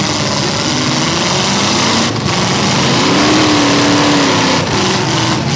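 Engines of several full-size demolition derby cars running loud and revving, their pitch rising and falling.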